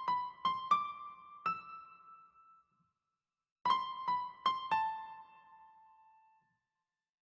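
Background music: a piano playing short phrases of about five quick notes. Each phrase rings out and fades, then a pause of about a second follows before the next phrase.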